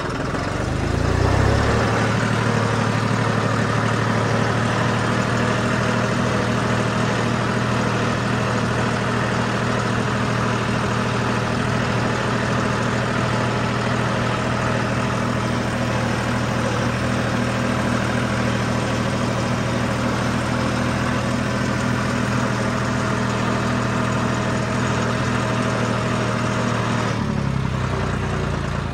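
Tractor diesel engine running at a steady pace while the tractor travels with its seed drill in tow. The engine picks up about a second in, holds an even note, and drops back lower near the end.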